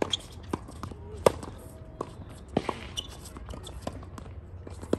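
Tennis rally on an outdoor hard court: sharp pops of racquets striking the ball and the ball bouncing, about half a dozen in all, the loudest about a second and a quarter in. A brief scrape comes about two and a half seconds in.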